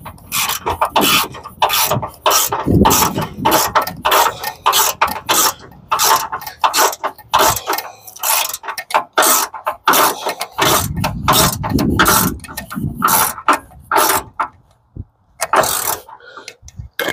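Socket ratchet wrench clicking in rapid runs of strokes as a bolt is tightened down, with brief pauses between runs.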